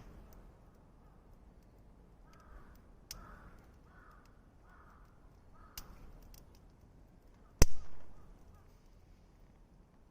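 A crow cawing about five times in a row, with sharp pops and crackles from a wood campfire; the loudest pop comes about two-thirds of the way through.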